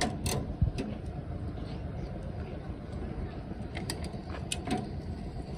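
Hand-pushed thermoplastic road-marking applicator rolling over fresh asphalt while laying a yellow line: a steady low rumble with a few sharp metallic clicks and rattles.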